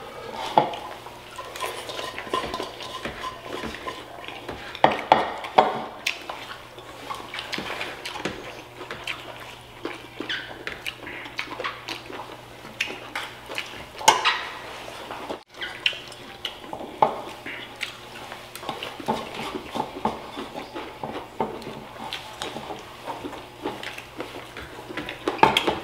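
Tableware clinking and scraping at the table: spoons knocking and scraping against ceramic plates, bowls and a stainless steel bowl in many short, irregular clicks. A faint steady low hum lies underneath.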